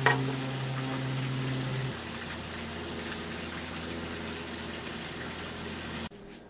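Burger patties sizzling on an electric grill: a steady hiss, with a short clatter right at the start and a low hum that stops about two seconds in.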